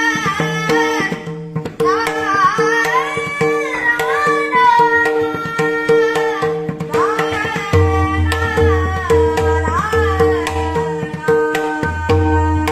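Marathi devotional song (abhang) sung by a solo voice in long, gliding phrases, accompanied by a steady tabla beat and held drone notes; deeper bass drum strokes come in about two-thirds of the way through.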